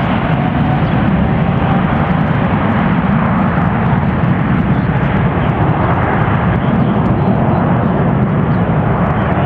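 Jet airliner engines running loud, a steady rumble with a faint rising whine that fades early on.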